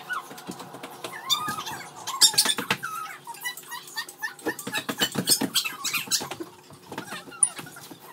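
A pet's high, wavy squeaking whines, mixed with many short clicks.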